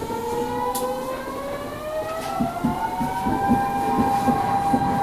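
Kyoto Municipal Subway 50 series train pulling away: its traction motors whine in several tones that rise slowly in pitch as it picks up speed, over a low rumble from the running gear.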